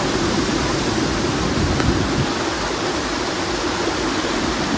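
Large waterfall's water rushing and crashing over rock, a steady, even noise with no breaks.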